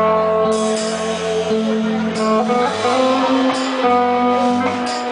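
Live rock band playing an instrumental passage: electric guitar through an amplifier holding sustained notes over a bass line, with a few cymbal hits.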